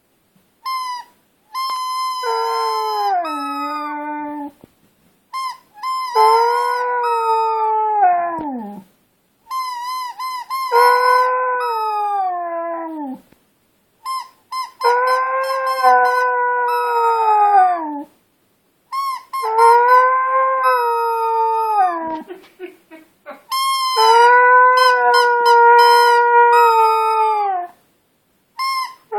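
A husky howling along to a squeaky toy ball: quick runs of short, shrill squeaks, each answered by a long howl that drops in pitch at its end, about six times over.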